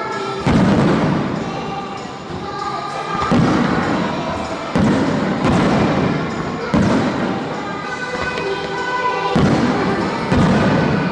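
Aerial fireworks shells bursting with deep thuds, six or seven in a row a second or two apart, over music played along with the display.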